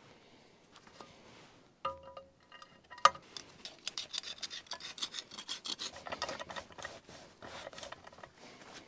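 Hand cleaning of a steel loader mounting pin: repeated short scraping and rubbing strokes, about three or four a second, with a metallic clink and brief ring about two seconds in.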